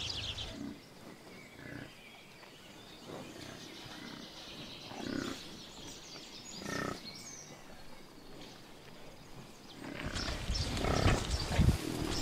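Greek water buffaloes grunting low, faint at first and louder over the last couple of seconds.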